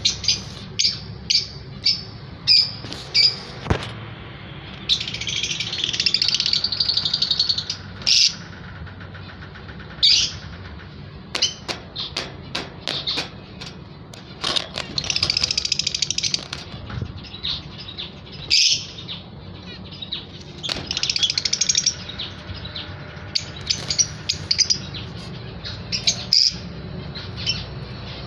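Caged Fischer's lovebirds calling: sharp, high chirps repeated again and again, broken by several stretches of rapid, continuous chattering a few seconds long. A steady low hum runs underneath.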